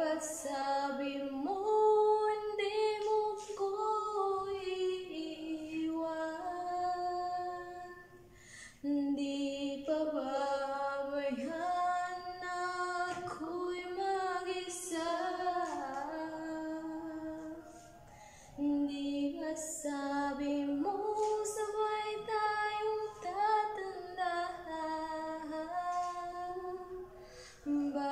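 A woman singing a song into a handheld wireless microphone, in long held phrases with short breaks about every nine seconds.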